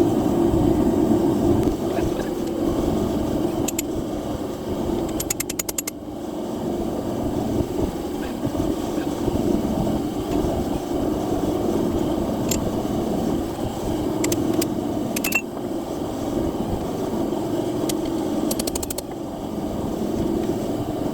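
Forge running with a steady roar, with a few faint sharp clicks and two short rapid rattles of metal on top.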